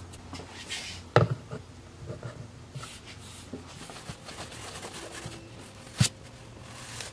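A sharp knock of hard plastic cases, stacked as weights on the phone's new back glass, about a second in. Then faint scraping of a blade along the edge of the phone, with a sharp click near the end.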